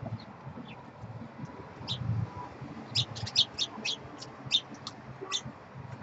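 Small birds at a feeder chirping: scattered chirps, then a quick run of about ten sharp chirps starting about three seconds in, over a low rumble.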